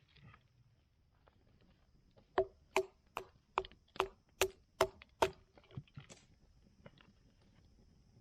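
Firewood being chopped for a campfire: after a short quiet spell, a quick run of about eight sharp wooden knocks, two or three a second, then a few fainter taps.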